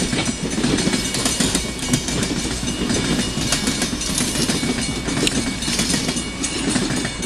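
Passenger railcars rolling past on the rails: a steady rumble of wheels with frequent clicks and clacks as the tail end of the train goes by.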